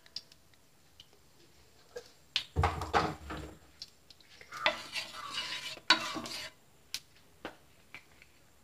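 Utensil clatter and scraping on a nonstick tawa as ghee is spread across it. There are a few light clicks, then two short stretches of scraping and rattling, around three and around five seconds in, and scattered clicks near the end.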